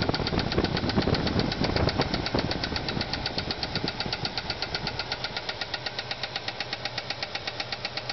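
Ford 302 V8 running with a fast, even lifter tick, about eight ticks a second, over a heavier rumble in the first few seconds. The tick comes from a bad lifter on a cam lobe flattened after a spun camshaft bearing cut off oil to the heads.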